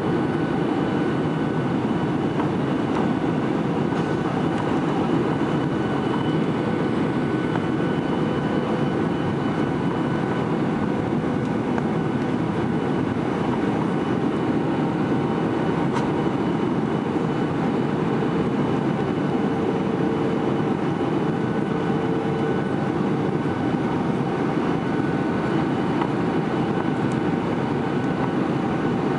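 Steady cabin roar inside a Boeing 737-800 in flight: its CFM56-7B turbofan engines and the rush of air over the fuselage, heard as a constant deep rush with a faint steady whine above it.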